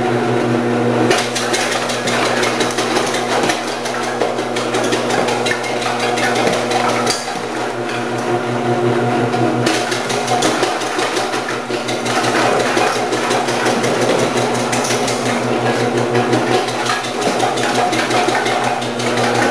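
Omcan HLC 300 commercial vegetable slicer running, its motor humming steadily while the spinning 8 mm disc cuts carrots fed through the side chute, with a rapid, dense clatter of slicing.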